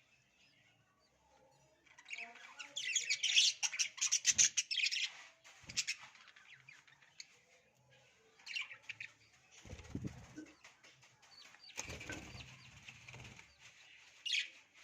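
Budgerigars chirping and chattering in bursts, busiest a couple of seconds in. About two-thirds of the way through, wings flutter twice.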